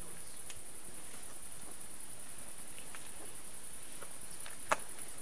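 A steady, high-pitched chorus of night insects chirring on a summer night, finely pulsing without a break. A single sharp click comes near the end.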